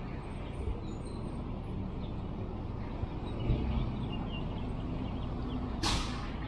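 Outdoor city-square ambience: a steady low traffic rumble with faint bird chirps, and a short hiss near the end.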